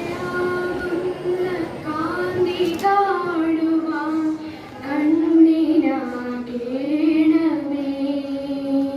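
A child singing a slow melody solo, holding long notes with gentle rises and falls between phrases and a short breath pause about four and a half seconds in.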